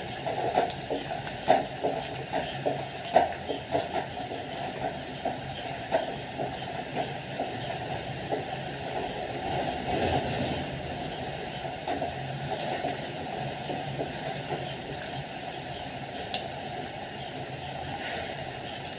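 A wooden spatula stirs thick simmering kadhi in a steel pot, with irregular scrapes and taps against the pot. They are busiest in the first half, with a couple of sharper knocks early on. Under them runs a steady hiss from the lit gas burner.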